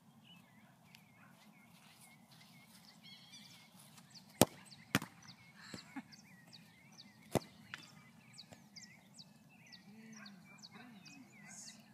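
A soccer ball struck hard with a bare foot, a sharp smack about four seconds in, followed by two further thuds of the ball landing and bouncing. Birds chirp in the background.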